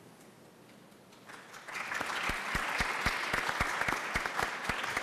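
Audience applauding, breaking out about a second and a half in after a brief hush, with single claps standing out in the clapping.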